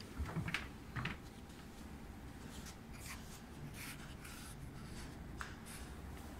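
A cabinet door and a mini fridge door on a compact all-in-one kitchen unit pulled open, with two short clunks in the first second. Faint rubbing and handling sounds follow.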